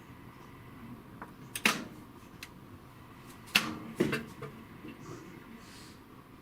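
Sharp clicks and knocks of something hard being handled: one about a second and a half in, then two close together around three and a half to four seconds in.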